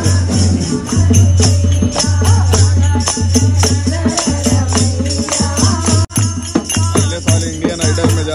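Devotional bhajan-kirtan: a dholak drum beating a steady rhythm under hand claps and jingling hand clappers, with women singing the melody. The music breaks off for an instant about six seconds in.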